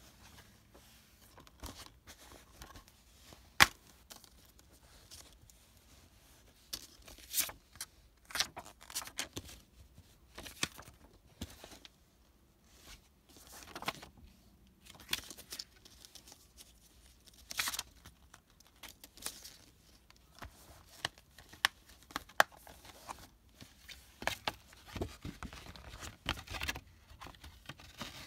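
Hands unwrapping and opening a plastic Blu-ray case: irregular crinkling and tearing of plastic wrap and clicks of the case, with one sharp click a few seconds in.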